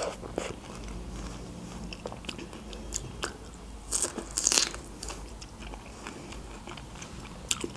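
Close-miked bites into a whole fresh strawberry and wet chewing: scattered mouth clicks and crunches, loudest in a cluster about four seconds in.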